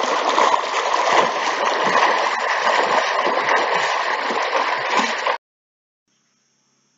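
Water splashing and sloshing close to the microphone as two people push off and swim away in a swimming pool. It cuts off suddenly about five seconds in.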